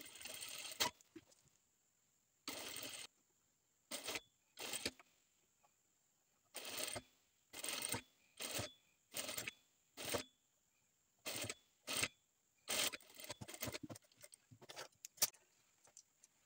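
IDAM industrial lockstitch sewing machine running in about a dozen short stop-start runs, each under a second, with brief pauses between as the fabric is turned, while a quarter-inch hem is stitched round a curved keyhole edge.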